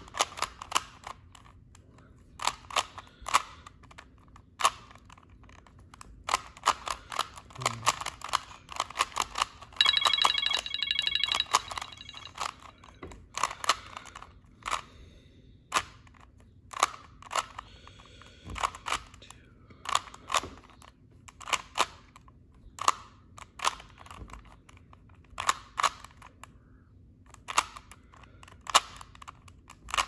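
Plastic 3x3 Rubik's cube being turned by hand: irregular sharp clicks as its layers turn and snap into line, with a dense run of quick clicks for about two seconds about ten seconds in.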